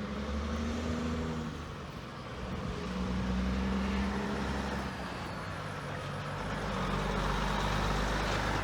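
Road traffic driving past: several vehicles go by one after another, each rising and fading, loudest about three seconds in and again near the end, with a low engine hum under the tyre noise.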